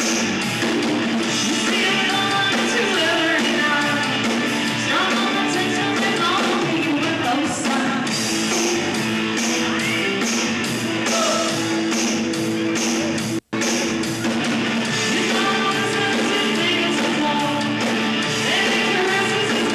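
Live rock band playing, with electric guitar and singing. The sound cuts out for a split second about two-thirds of the way through, then carries on.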